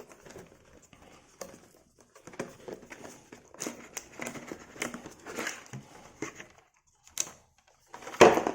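Plastic packaging crinkling and rustling as a boxed product is unwrapped by hand, with scattered clicks and a loudest sharp knock or rustle near the end.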